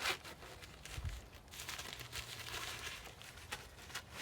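Fabric rustling and crinkling as the folded tent cloth is tucked into its carrying bag by hand, with a low thump about a second in.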